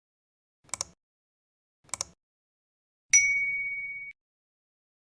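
Two short clicks a little over a second apart, then a single bright bell-like ding that rings for about a second and cuts off abruptly: an added sound effect.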